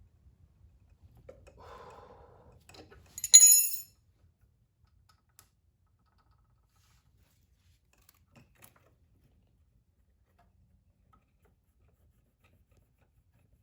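Small metal hand tools being handled on the engine during a valve-lash check. A soft rubbing comes about a second in, then a short, sharp metallic clink with a brief ring about three seconds in, and a couple of faint ticks later.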